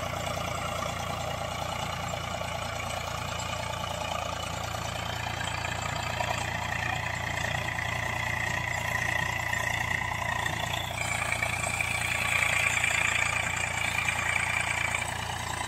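Eicher 485 tractor's three-cylinder diesel engine running steadily under load while it pulls a rotavator through dry soil. It gets louder about eleven seconds in.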